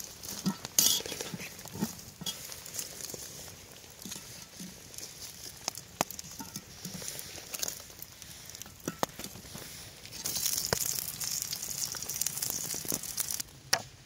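Food sizzling as it cooks, with scattered clicks and knocks of cooking utensils. A louder, hissier sizzle starts about ten seconds in and stops abruptly some three seconds later.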